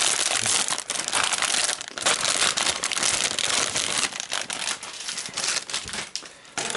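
Thin clear plastic bag crinkling and crackling as hands open it and slide out the plastic model-kit runners packed inside. The crinkling goes on steadily, then thins to a few light clicks and rustles near the end.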